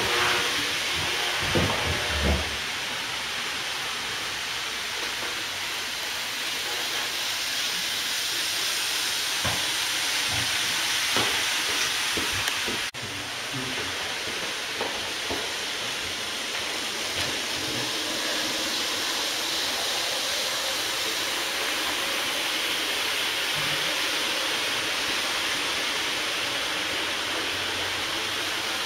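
Model trains running on a layout under a steady hiss of room noise, with a few light clicks and knocks in the first few seconds and a brief break about 13 seconds in.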